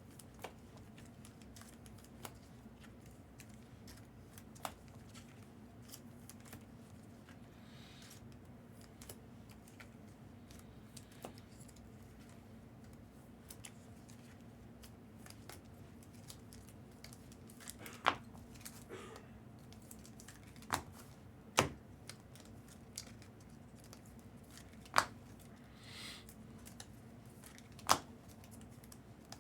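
Trading card packs and cards being handled on a table: faint tearing and rustling with scattered small clicks. A few sharp taps stand out in the second half.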